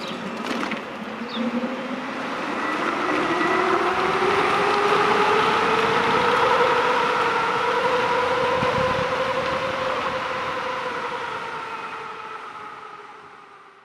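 The 12 kW hub motor of a 72-volt electric bike whines under way, over wind rush. Its pitch rises as the bike accelerates over the first several seconds, holds, then slowly falls. The sound fades out near the end.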